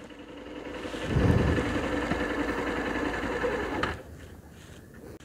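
Motorcycle engine running steadily as the bike rides along, swelling about a second in and dropping off sharply about four seconds in.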